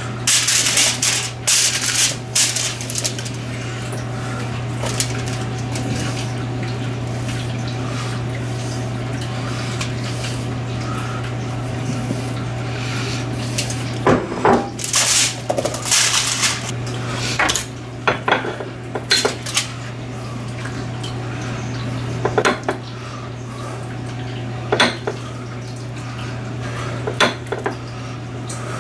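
Aluminum foil crinkling and raw potato chunks and onion pieces clicking against each other as they are spread by hand on the foil. The handling comes in scattered bursts near the start and again from about halfway, over a steady low hum.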